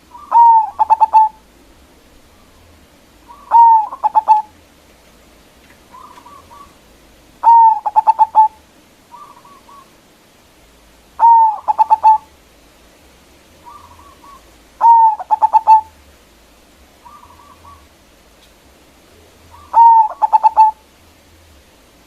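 Zebra dove (perkutut) singing: a loud cooing phrase about every four seconds, each a rising swoop followed by a quick run of short notes, six times in all, with softer brief coos in between.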